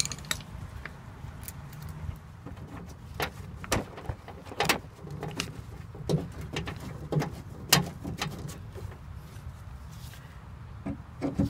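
Irregular clicks and knocks from hand tools and metal parts being worked inside an open pickup truck door, as a door handle and its linkage are refitted with a socket wrench.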